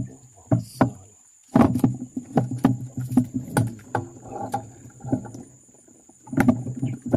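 Irregular knocks and thumps on the hollow hull of a plastic fishing kayak as a freshly caught giant river prawn and the rod are handled in the boat. The knocks come in a dense run after a short pause about a second in, ease off, then return near the end.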